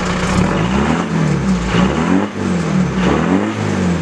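Vehicle engine revving, its pitch rising and falling several times in quick succession.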